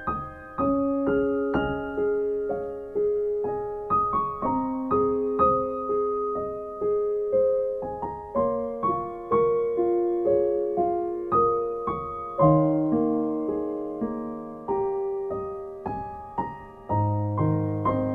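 Instrumental piano music: a gentle melody of struck notes, each fading away, over held lower chords, with deeper bass notes joining near the end.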